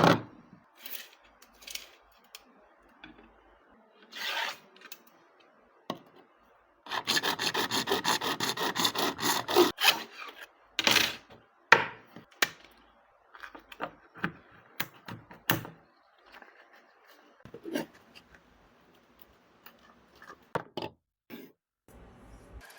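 PVC pipe and balloon being handled and worked while a homemade horn is built: scattered rubs, scrapes and clicks, with a run of quick rasping strokes lasting about three seconds near the middle.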